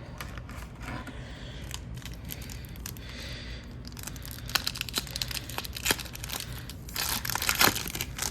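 Trading card foil pack wrapper crinkling and tearing, with cards clicking and sliding against each other as they are handled, busiest about halfway through and near the end.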